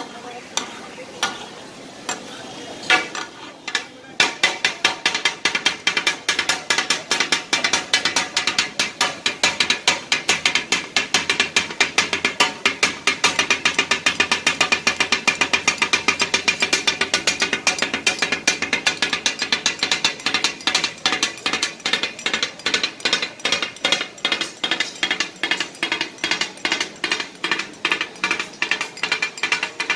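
Two heavy steel blades clattering on a hot iron griddle as they chop offal for kata-kat, the clatter the dish is named after. The strikes start about four seconds in and keep up a fast, even rhythm of about three a second.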